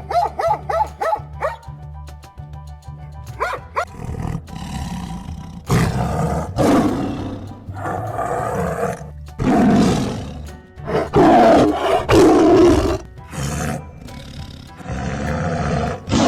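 A large animal roaring and growling in a series of long, loud, rough calls, the loudest near the end, over background music with a steady low beat. Brief high yips and whimpers from a dog open it.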